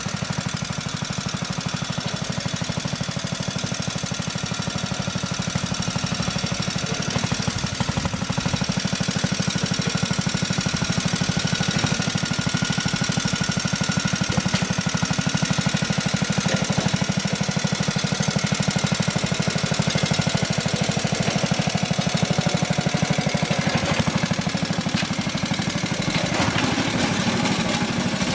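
JAP two-cylinder petrol engine of a Road Machines (Drayton) contractor's monorail wagon running steadily with a fast, even beat as the wagon travels along its monorail track on its hydraulically driven bogies. The engine grows a little louder over the first several seconds as the wagon comes closer.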